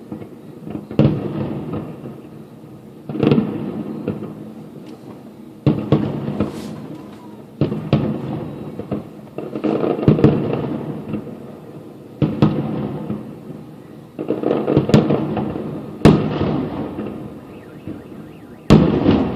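Aerial fireworks shells bursting in a steady barrage, a sharp boom every two to three seconds, each followed by a long rolling echo and some crackle.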